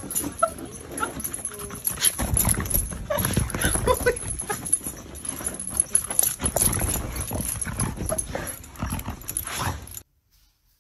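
A dog scrambling and moving about with irregular thumps, knocks and scrabbling. The sound cuts off abruptly near the end.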